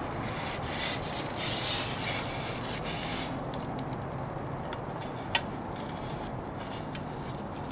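Cedar plank dragged across metal grill grates onto a plate with tongs: a rasping wood-on-metal scrape for about three seconds, then scattered light clicks and one sharp click a little past five seconds.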